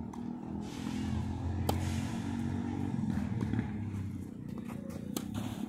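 Tennis ball struck by rackets during a rally: two sharp hits, about three and a half seconds apart, over a steady low hum.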